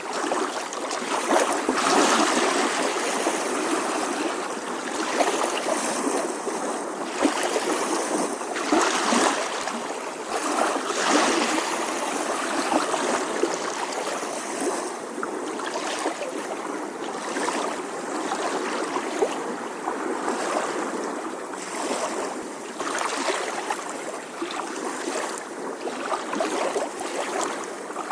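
Small ocean waves lapping gently on the shore, a continuous splashing wash that swells and falls every second or two.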